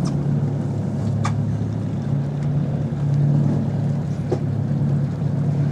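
Fishing boat's engine running steadily at low trolling speed, a continuous low hum, with a couple of faint clicks over it.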